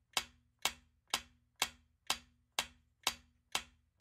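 Clock-style ticking sound effect for a quiz countdown timer: sharp, even ticks, about two a second.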